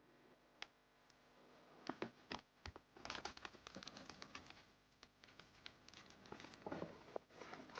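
Faint, irregular crackling and clicking, many small sharp ticks, thicker from about three seconds in.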